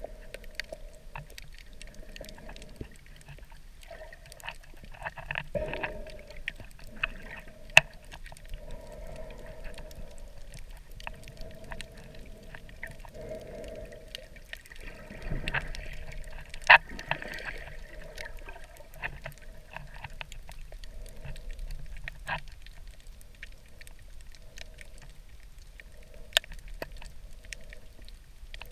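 Water movement heard underwater in a shallow coral tide pool, with many small sharp clicks scattered through it and three much louder snaps.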